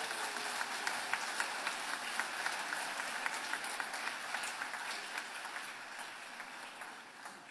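Audience applauding: a dense patter of many hands clapping that slowly dies away near the end.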